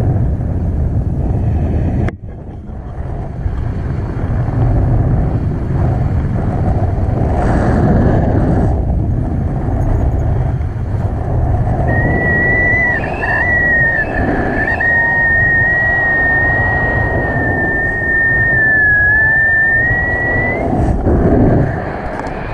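Wind rushing and buffeting over the camera microphone in flight under a tandem paraglider: a loud, rough rush of air with a sudden brief drop about two seconds in. In the second half a thin high tone, like a whistle, holds for about nine seconds, wavering slightly and rising at its end.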